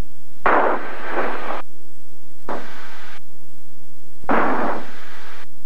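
Bursts of static hiss on the cockpit radio audio: three separate rushes, each about a second long, one just after the start, one in the middle and one near the end.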